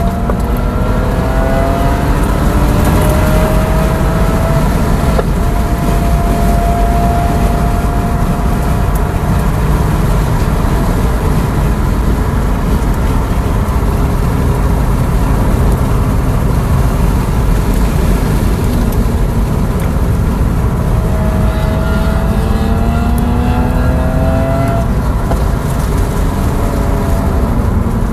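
Tesla Model S Plaid at track speed, heard from inside the cabin: a steady rush of wind and tyre noise. Over it, the electric drive whine climbs in pitch as the car accelerates, first at the start and again about three quarters of the way through.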